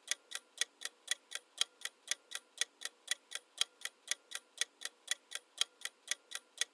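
Clock-ticking sound effect marking a countdown timer, steady at about four ticks a second.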